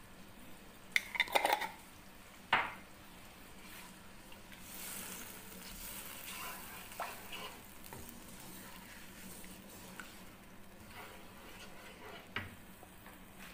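A wooden spatula stirs a thin sauce in a nonstick wok. It knocks and scrapes against the pan in a quick cluster about a second in and once more shortly after, with a soft hiss of stirring and simmering in the middle and a last light knock near the end.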